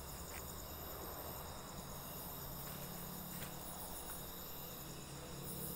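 Night insects, crickets, chirping in a steady high-pitched chorus with a fast, even pulse. A low steady hum comes in about halfway through.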